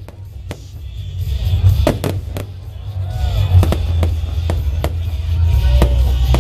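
Aerial fireworks shells bursting in a rapid series of sharp bangs, several a second at times, with music playing underneath.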